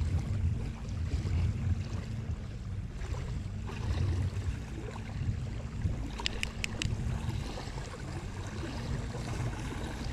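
Small waves lapping at the shoreline, with wind buffeting the camera microphone as an uneven low rumble. About six seconds in there are four quick, sharp clicks in close succession.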